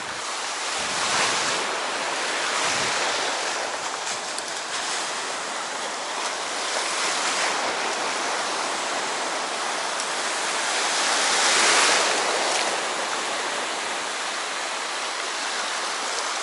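Sea waves washing onto the shore: a steady hiss of surf that swells about a second in and again, more strongly, near twelve seconds in.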